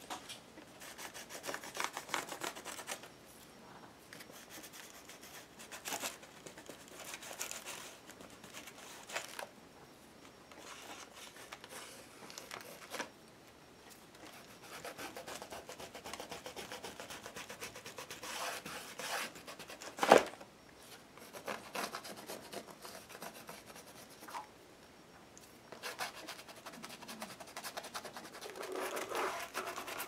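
Stabilo pencil and fingertips rubbing and scribbling on paper around the edges of a thick altered-book page, in irregular scratchy strokes, with one sharp knock about two-thirds of the way through.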